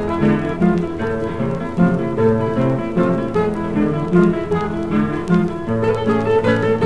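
Instrumental folk dance music, the pericón, played on plucked guitars with bowed strings underneath.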